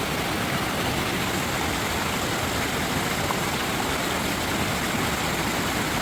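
Creek waterfall rushing, a steady even roar of falling water.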